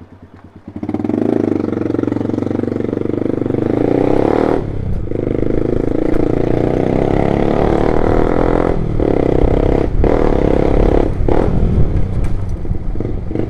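Loud motorcycle engine: a low, evenly pulsing idle for under a second, then the bike pulls away and runs hard under throttle, its sound dropping briefly several times.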